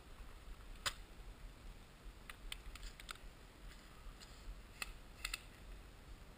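Faint, scattered sharp clicks and ticks, about a dozen at uneven intervals, one a little louder about a second in and a quick pair about five seconds in.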